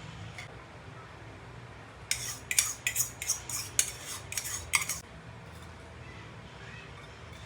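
Metal utensils clinking against dishes: about ten sharp clinks in quick, irregular succession over some three seconds, over a steady low hum.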